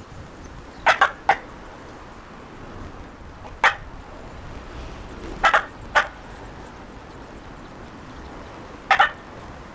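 Branches being snapped or cut: a series of short, sharp cracks, several in quick pairs, with a few seconds between groups.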